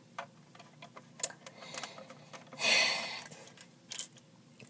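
Plastic Lego pieces clicking and tapping as they are handled and set into a model on a hard stone table, with one short scraping rasp about two and a half seconds in.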